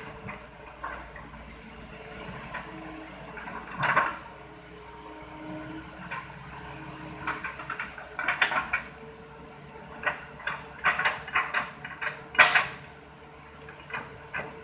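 Plastic toy excavator and toy truck knocking and clattering as they are handled, in scattered hard clacks with a busy run of them in the second half, over a faint steady hum.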